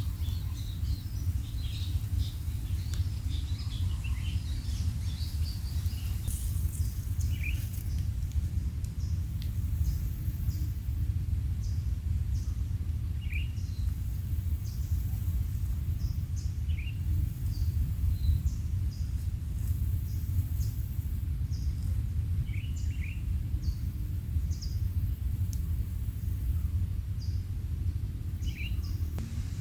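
Short bird chirps, scattered a few seconds apart, over a steady low rumble.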